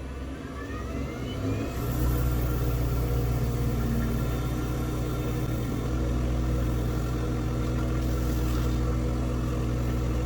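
Wood lathe motor rising in speed over the first couple of seconds, then running at a steady hum.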